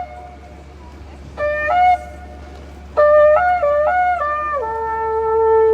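Shofar blown in two blasts: a short one about a second and a half in that jumps up in pitch, then a longer one starting about three seconds in that steps up and down between notes before settling on a long, low held note.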